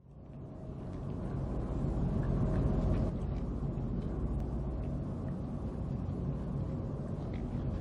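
Steady low rumble of harbour ambience, fading in over the first second, with a few faint clicks above it.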